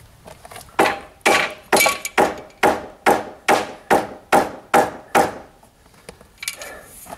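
A hammer striking the top edge of the foundation formwork about eleven times, roughly two blows a second, to tap it down level into the gravel bed; the blows stop a little past five seconds.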